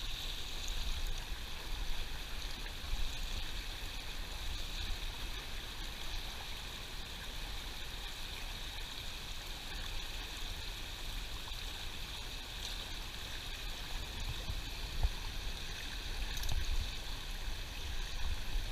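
Shallow creek water rushing over rocks in riffles and small rapids: a steady, even rush.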